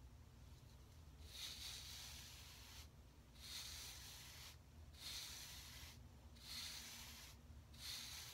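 A palm wave brush stroked firmly through short, coiled hair to lay down 360 waves: five soft brushing strokes, each a rush lasting about a second, coming roughly every second and a half.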